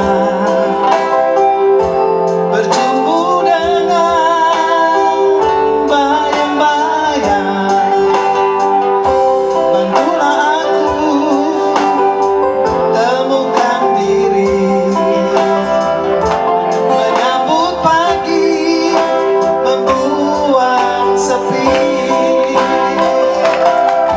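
A slow song with guitar accompaniment and a woman singing.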